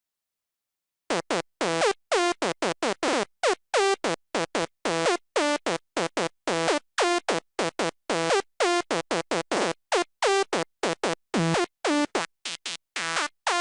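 Sylenth1 software synth playing a high-pitched psytrance night full-on lead, known as the "cat lead" because it sounds like a cat screaming. It plays a fast staccato melody of short, bright notes, each opening with a quick downward pitch sweep from an envelope on the pitch. It starts about a second in.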